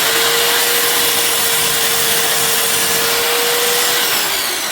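Parkside sliding mitre saw's electric motor and blade running at full speed, a loud steady whine. About four seconds in the pitch starts to fall as the motor winds down.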